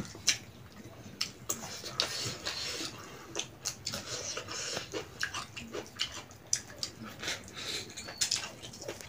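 Close-up eating sounds: wet chewing and lip smacking, with many short clicks and smacks as hands pick through food on a plate.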